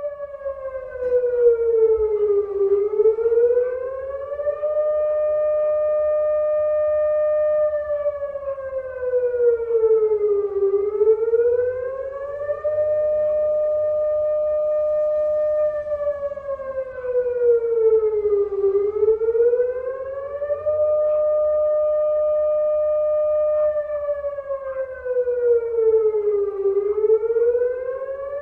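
Air-raid siren wailing, its pitch holding high, then sliding down and back up in slow cycles, dipping four times about every eight seconds.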